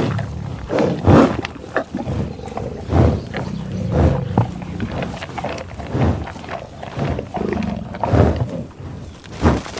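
American bison grunting repeatedly: short, low grunts, one every second or two.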